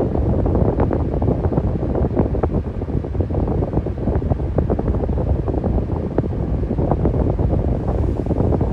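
Electric fan running steadily: a low rushing of air that sounds like wind on the microphone, with many faint crackles.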